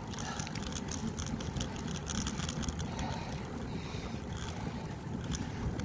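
Wind buffeting the microphone of a phone on a moving bicycle: a steady low rumble with frequent crackles.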